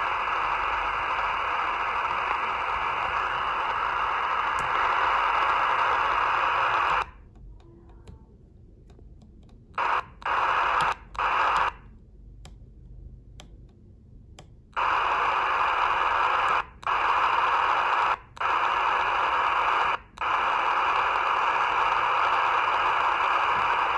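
Racal 25 VHF handheld radio's speaker hissing with FM receiver static, open squelch on channels without a voice. The hiss cuts out after about seven seconds, comes back twice briefly, then returns from about halfway with short breaks as the channel changes.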